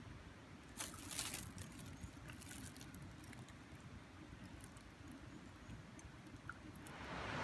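Paper drip-bag coffee filter and its foil packet crinkling as they are handled, loudest about a second in, with a few small clicks after, over a low rumble. A hiss swells up near the end.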